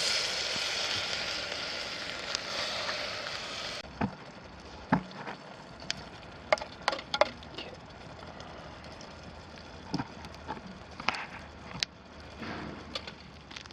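Whole tomatoes tipped into a hot pot, sizzling loudly for about four seconds before the hiss stops abruptly. This is followed by scattered sharp clicks and knocks.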